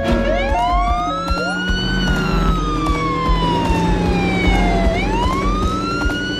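Emergency-vehicle siren wailing: one slow rise, a long fall, then a rise again near the end. A two-tone hi-lo siren pattern fades out in the first second.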